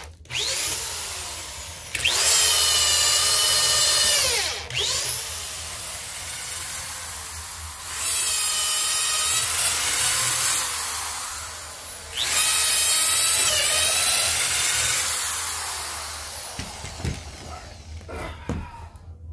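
Corded DeWalt drill driving an auger bit through a treated-wood deck post, its motor whining in several long runs with quieter stretches between and dipping in pitch at the end of each run. It dies away near the end, leaving a few light knocks.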